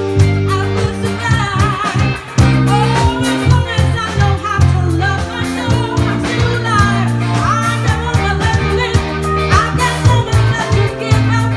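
Live rock-pop band playing a song: a woman singing lead over electric guitar, bass guitar and a drum kit. The music drops back briefly about two seconds in, then comes back in with a hit.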